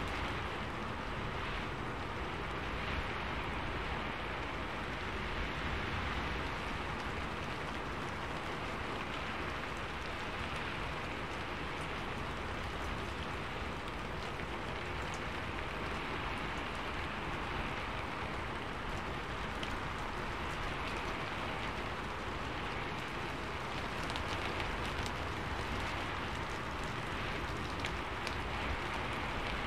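Steady rain falling, an even hiss of many drops that keeps the same level throughout.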